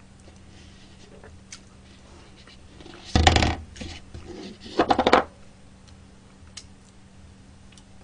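A takeout food cup being put down on the tabletop: a short scraping clatter about three seconds in and another about five seconds in, with faint small ticks of utensils and chewing in between.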